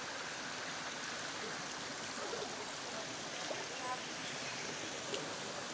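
Steady rushing of spring water flowing and splashing over rocks in a hot-spring stream.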